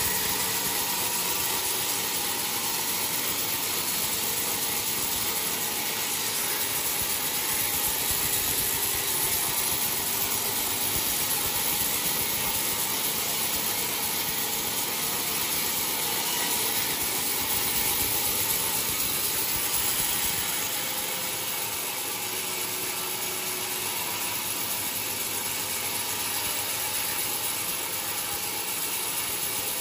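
Sawmill machinery running with a steady mechanical noise, easing a little about two-thirds of the way through.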